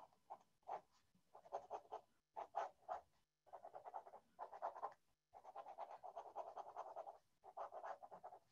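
Faint scratching of a pen drawing on paper, in quick irregular strokes with short pauses between runs.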